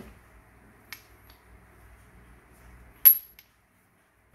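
A pack of cylindrical battery cells being handled and picked up: light clicks, then a sharp ringing metallic clink about three seconds in.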